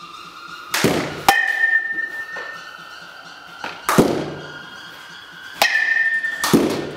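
Softball bat striking pitched softballs several times, a hit every two to three seconds, each a sharp crack, some followed by a ringing tone.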